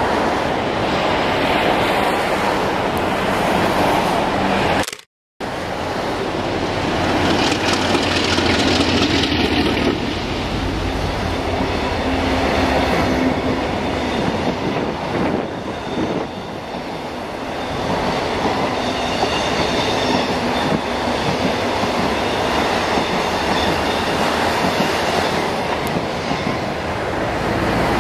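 DF11 diesel-electric locomotive hauling 25Z passenger coaches past at speed: the engine runs, then the coach wheels clatter over the rail joints. The sound cuts out completely for a moment about five seconds in.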